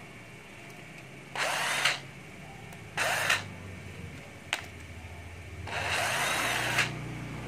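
Makita cordless drill-driver run in three short bursts, whirring up and cutting off abruptly each time, with a brief click between the second and third. The stop-start running goes with a battery that the seller calls intermittent.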